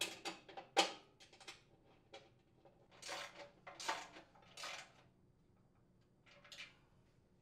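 Small metal hardware clinking and scraping against a sheet-metal housing as it is handled by hand: a quick run of sharp clicks, then a few longer scrapes.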